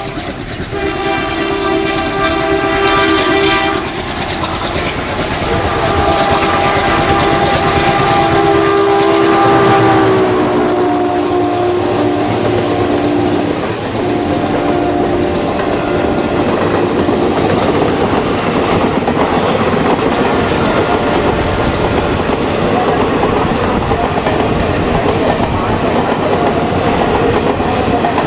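Indian Railways WDM2 diesel locomotive, with its ALCO 16-cylinder engine, passing at speed and sounding its horn in two long blasts, the second dropping in pitch partway through. The engine chugs under the horn, and then the coaches roll by with a steady clickety-clack of wheels over the rail joints.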